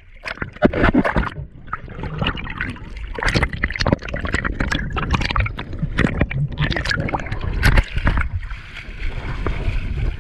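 Sea water splashing and sloshing in irregular bursts over a steady low rumble.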